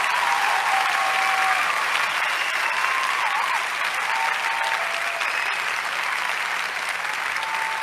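Steady applause from a crowd, with a few faint pitched cheers or whistles over it.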